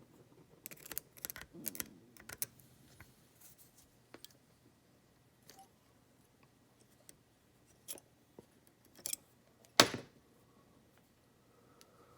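Lock picks and a tension tool clicking and scraping against a padlock's keyway, with scattered light metal taps and a sharper click about ten seconds in.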